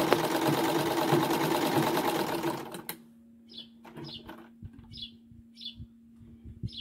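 Vintage black Gloria sewing machine running fast as a seam is stitched, then stopping abruptly about three seconds in. A bird then chirps repeatedly in short high notes over a faint steady hum.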